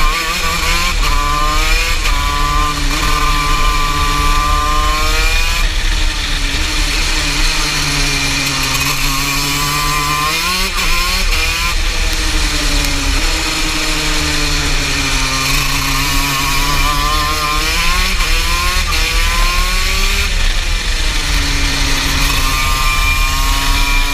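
TM KZ10B 125 cc two-stroke shifter kart engine at racing speed, heard on board. The revs climb through the gears and fall away sharply for the corners several times.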